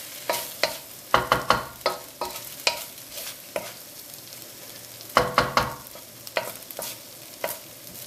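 Fried rice coated in sweet soy sauce being stirred in a hot pan: a utensil knocks and scrapes against the pan over a steady sizzle. There are clusters of clatters about a second in and again about five seconds in, with single knocks between.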